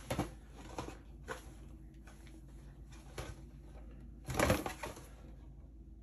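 Foil booster pack wrappers crinkling and tapping together as the packs are handled and counted, in short separate rustles, with one louder crinkle about four and a half seconds in.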